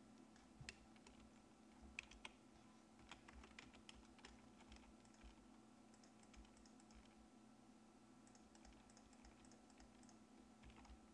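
Faint clicking of computer keyboard keys pressed in irregular bursts as shortcuts are typed, over a low steady hum.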